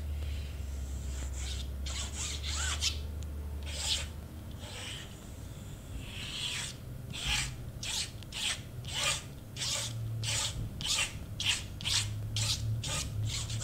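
Rasping strokes of a hand rubbing and pressing down a freshly glued sheet of cardstock, a few at first, then a steady run of about one or two strokes a second in the second half.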